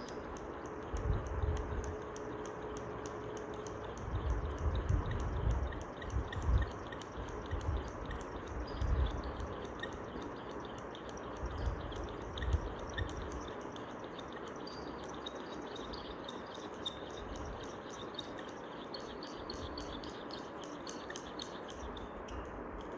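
Sling psychrometer whirled by hand: a faint, quick run of light ticks and high squeaks from the thermometer frame turning on its handle, over a steady hiss, with irregular low rumbles of moving air over the first half.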